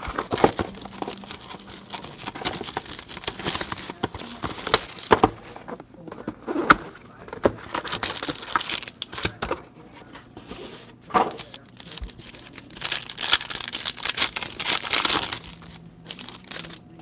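A cardboard trading-card box handled and opened by hand, with scattered taps and rustles, then a foil card pack crinkling as it is pulled out and handled. The crinkling is densest in the last few seconds.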